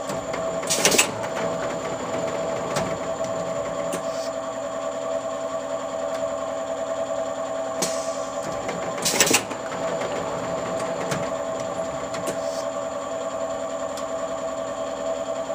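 Extrusion blow moulding machine for plastic bottles running with a steady mechanical hum. Twice, about eight seconds apart, a short loud burst of hiss cuts through it.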